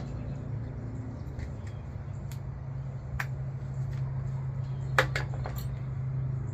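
Sharp metallic clicks and clinks of sockets and hand tools being handled and swapped while fitting the right size to the oil pan bolts, the loudest a little after four seconds in, over a steady low hum.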